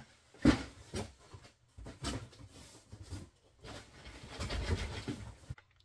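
Cardboard moving box being handled and opened: irregular knocks and scrapes, then a longer stretch of rustling near the end that stops suddenly.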